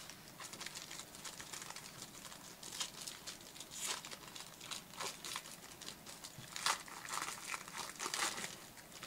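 Gold foil wrapper of a 2016 Panini Black Gold trading-card pack being crinkled and torn open by hand: a quick run of short crackles and rustles, loudest a little before the middle and again near the end.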